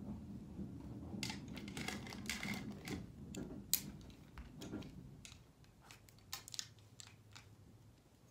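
Pair of scissors opening and closing: a run of short, sharp metallic snips and clicks, thickest around two to three seconds in with one louder snap near four seconds, thinning out to a few scattered clicks near the end.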